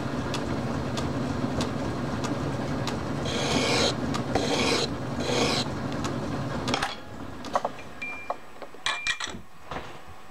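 Metal lathe running as a small part is faced and squared up, with three short scraping hisses as the tool takes cuts about three to five seconds in. The lathe is switched off about seven seconds in and winds down, followed by a few sharp clicks.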